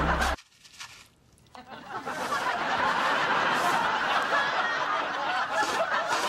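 Sitcom studio audience laughing, a steady wash of laughter that swells in about a second and a half in after a brief silence. Just before the silence, a music cue with deep bass notes cuts off.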